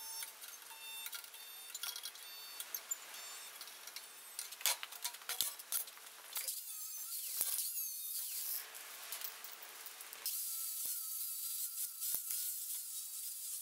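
Portable resistance spot welder in use on a thin steel strip: a faint steady hum with a few short, sharp clicks. About ten seconds in it changes to a steadier hiss with a faint wavering whistle.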